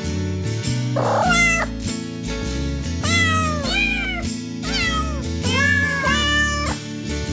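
Cats meowing repeatedly, a series of bending, falling calls about once a second, over background music with a steady beat.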